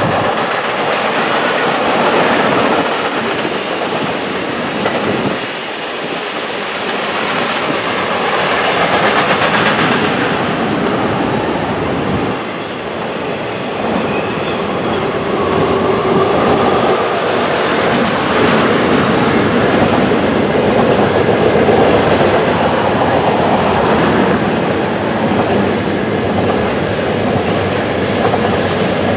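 Railcars of a passing train rolling by on the track: a loud, steady clatter of steel wheels on rail that runs unbroken throughout.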